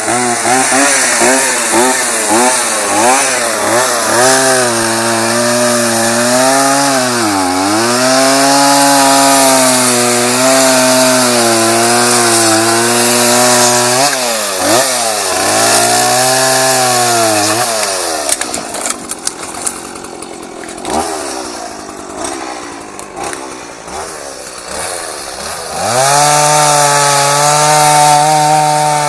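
Chainsaw running at high revs, its pitch sagging and recovering a few times. About two-thirds through it drops to a quieter, rougher running for several seconds, then revs back up near the end.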